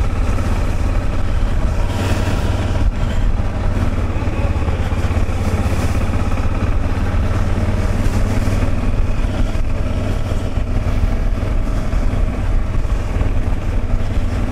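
Motorcycle engine running steadily while the bike is ridden along a wet dirt track, with a constant deep rumble and a steady rush of noise over it.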